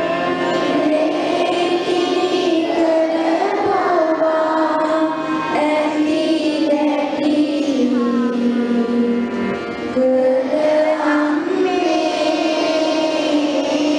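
Voices singing a slow melody together, with long held notes that glide gently between pitches.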